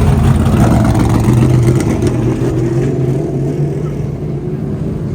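Dirt modified race cars' engines running hard around the track, a loud steady drone of several cars at once that eases off slightly toward the end.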